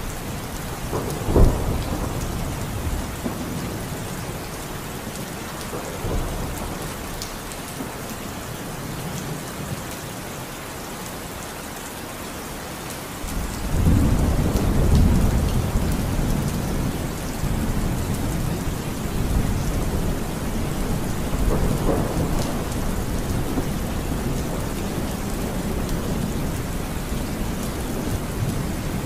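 Heavy rain pouring steadily, with a low rumble underneath. There is a sharp low thump about a second and a half in, and the rumble grows louder and deeper about halfway through.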